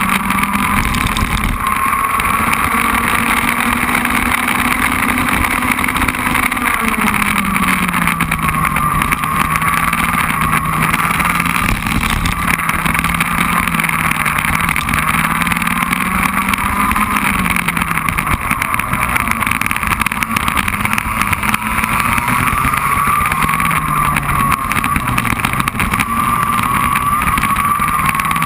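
Racing kart engine at full racing speed, recorded from an onboard camera on the kart. Loud and continuous, with the pitch falling and climbing again several times, about seven, eighteen and twenty-four seconds in, as the kart slows for corners and accelerates out of them.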